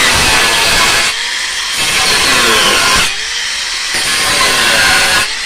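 Electric power tool cutting through wood for a speaker cabinet, running loud and steady with short dips in load about a second in, around three seconds in and near the end.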